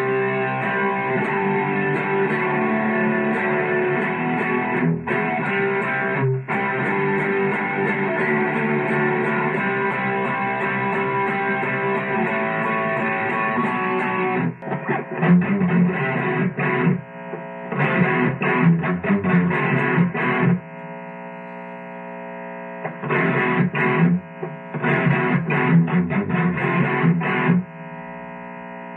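Electric guitar riffs played through a Boss Katana Mini practice amp. For the first half a Peavey Raptor Plus rings out dense, sustained chords. About halfway through, a Schecter Damien FR takes over with a choppy, stop-start riff of short chugging strokes, broken twice by a quieter held note.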